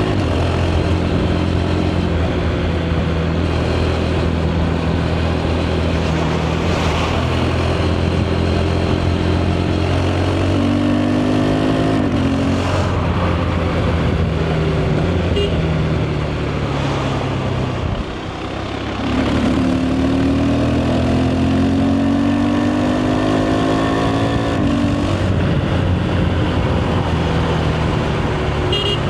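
KTM 390 Adventure's single-cylinder engine through its stock exhaust on the move, running steadily with the pitch rising as it pulls through the revs several times. About two-thirds of the way through it backs off briefly and goes quieter, then picks up again.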